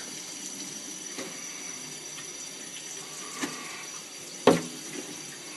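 Kitchen tap running steadily onto a raw turkey in a stainless steel sink, with a few knocks as the bird is handled; one sharp knock about four and a half seconds in is the loudest sound.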